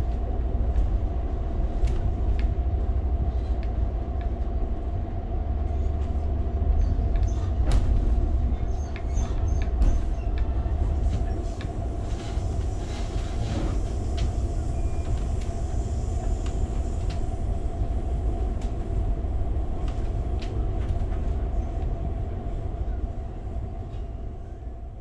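Riding inside an Amtrak passenger car: a steady low rumble of the train rolling on the rails, with a constant hum and scattered light clicks and rattles. It fades out right at the end.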